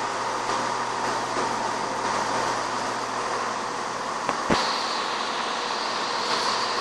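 ScotRail Class 170 Turbostar diesel multiple unit standing at a platform with its diesel engines idling, a steady hum and hiss. A sharp knock comes about four and a half seconds in, followed by a steady high-pitched tone.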